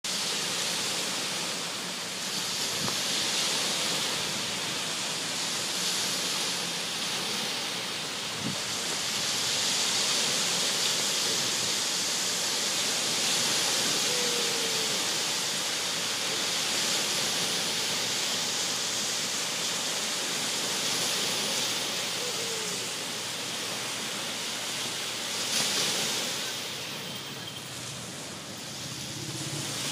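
Small waves breaking and washing onto a sandy lake shore: a steady rush of surf that swells and eases every few seconds.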